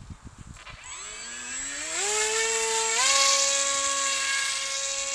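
Electric motor and propeller of an AXN foam RC plane spinning up after a few low thumps: a rising whine that steps up in pitch twice as the throttle is opened, then holds a steady high whine as the plane flies.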